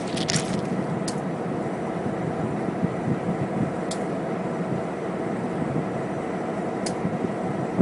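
Diesel-hauled train approaching from a distance: a steady low rumble with a faint, even hum over it, and a few light clicks.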